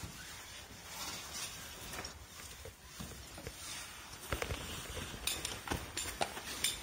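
Footsteps and scuffs on a sandy canyon floor, with several sharp clicks and knocks from about four seconds in.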